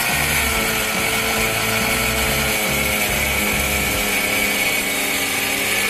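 Angle grinder with a 4-inch diamond saw blade running steadily under load as it cuts into hard material, a continuous whine with grinding noise.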